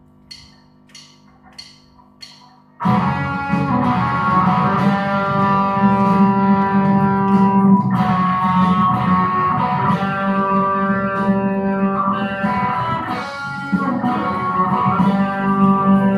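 A steady count-in of sharp ticks, about one every two-thirds of a second. A little under three seconds in, loud rock music starts abruptly: an electric guitar playing through an amp over a backing track, carrying on steadily.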